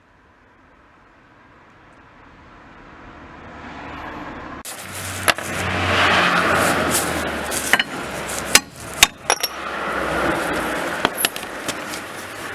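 Angle grinder cutting into a steel brake disc: a loud, dense grinding noise that starts suddenly about five seconds in after a slow build, with several sharp metallic knocks scattered through it.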